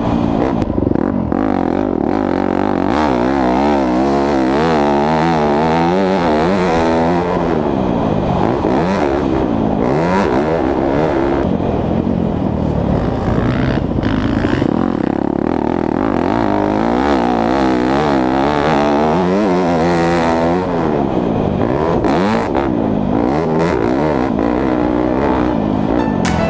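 2017 Yamaha YZ250F's four-stroke single-cylinder engine revving up and down over and over as the bike is ridden hard, pitch climbing on the throttle and dropping off again many times.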